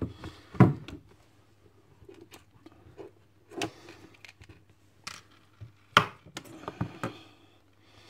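Scattered knocks and light clicks of a metal padlock being handled and set down on a wooden tray, with quieter scraping between them. The two sharpest knocks come about half a second in and about six seconds in.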